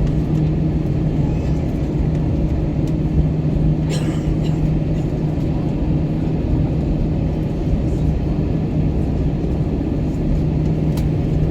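Steady cabin drone inside an Airbus A321 on the ground before takeoff, engines at idle, with a constant low hum under an even rushing noise. A brief rattle comes about four seconds in.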